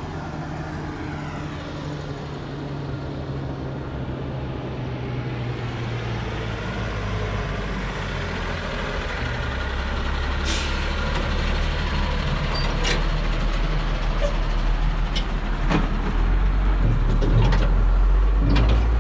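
Heavy diesel trucks slowing over a speed bump. The low engine rumble grows louder as they come close, with a short hiss about ten seconds in and several sharp knocks and rattles in the second half as the trucks and loaded trailers go over the bump.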